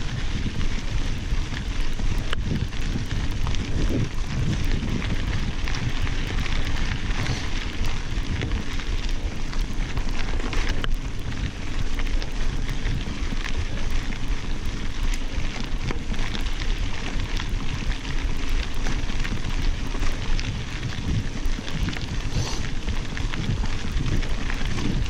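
Mountain bike rolling on a gravel dirt road: a steady crackle and crunch from the tyres on the loose surface, with wind rumbling on the microphone.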